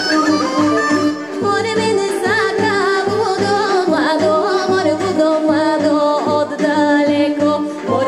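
A woman singing a Bulgarian folk song into a microphone, with an ornamented, wavering voice, over amplified instrumental accompaniment with a steady bass beat. The instruments play alone at first and her voice comes in about a second and a half in.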